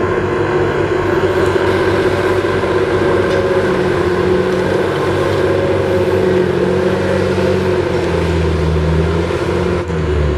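Komatsu D61PX crawler bulldozer's diesel engine running steadily under working load, with a steady whine over the engine. The low engine note shifts slightly near the end.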